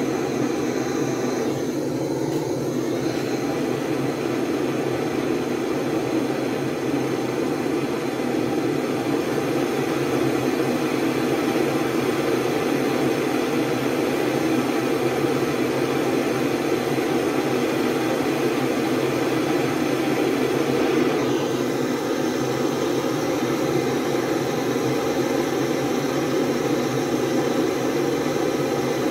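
Hand-held gas torch burning steadily with a continuous rushing noise, heating a steel rear-drive part so it expands for shrink-fitting onto an ice-chilled shaft.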